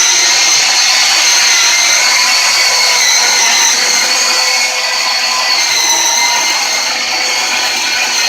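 Milwaukee M18 Fuel brushless battery chainsaw running at speed: a steady high electric whine that sags slightly in pitch about five seconds in, then recovers.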